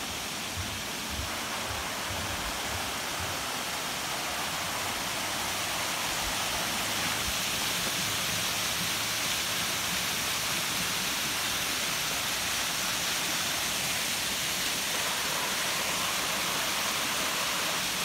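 Steady rushing splash of a small waterfall cascading down a rock ledge, growing a little louder over the first several seconds and then holding even. A few soft low thumps come in the first seconds.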